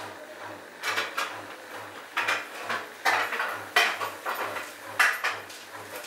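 Bosch built-in washing machine running a rinse cycle, its drum turning the wet load with clusters of clattering knocks and clinks every second or so, over a low, evenly pulsing hum.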